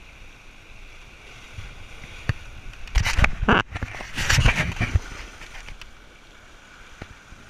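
Sea water washing against a rocky shoreline, with stronger surging splashes between about three and five seconds in. A few sharp clicks sound over it.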